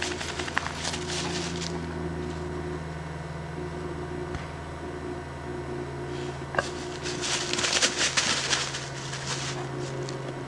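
Footsteps crunching and rustling through dry fallen leaves: a short spell at the start, then a longer one from about six and a half to nine and a half seconds in. A steady low hum runs underneath.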